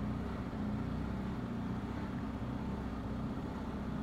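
BMW R1250 GS Adventure's boxer-twin engine running steadily at low speed, a low hum over a faint haze of road noise.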